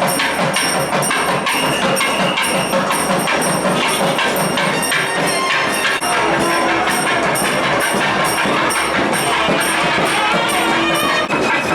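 South Indian temple ritual music: rhythmic metallic strokes ringing high, about four a second, over drumming, with a few held piping notes.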